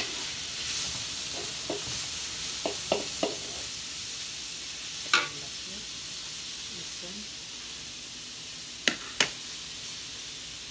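Sliced onions sizzling in hot oil in a large metal wok while being stirred with a wooden spatula. A few sharp knocks of the spatula against the pan stand out, the loudest about halfway through and a quick pair near the end.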